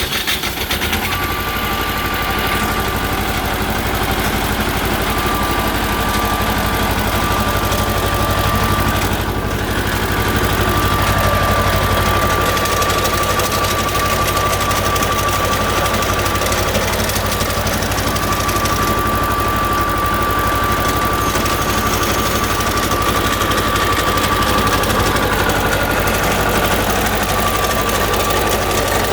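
2001 Target Pro 35 II walk-behind concrete saw running steadily, its engine note joined by a thin, steady high whine from about a second in.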